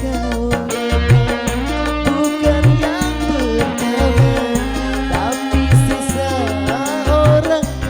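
Live dangdut band playing an instrumental interlude: a wavering, gliding melody over bass, driven by the low hand-drum strokes of the kendang that bend upward in pitch on a steady beat.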